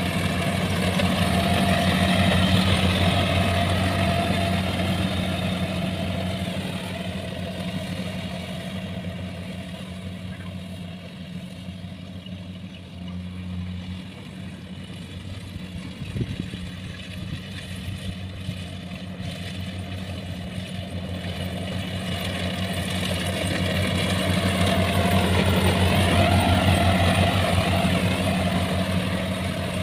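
Kubota rice combine harvester running steadily while it harvests, its engine a constant low hum. It is loudest in the first few seconds, weaker through the middle, and swells again near the end.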